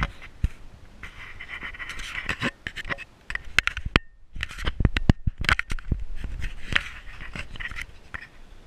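Handling noise from a hand-held phone: scratching, scraping and irregular sharp clicks and knocks as the phone is moved and gripped, with a brief cut-out about four seconds in.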